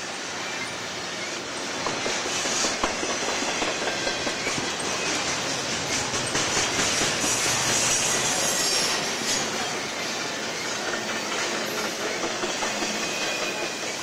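Double-stack intermodal well cars rolling past: the steady rumble and clatter of steel wheels on rail, swelling a little louder for a few seconds in the middle.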